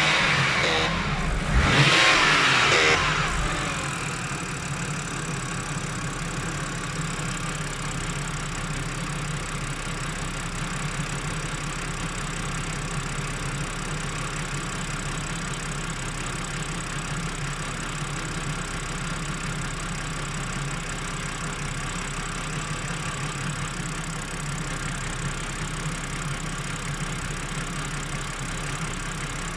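BMW E90 325i straight-six engine revving up and down in the first three seconds, then settling into a steady idle. The owner says this strange noise has appeared since she cleaned both solenoid valves and fitted new O-rings.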